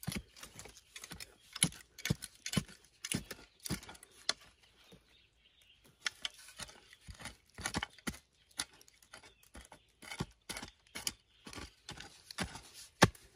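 Hoe blade chopping and scraping into dry, crumbly soil and roots, in irregular strikes with a short pause about five seconds in.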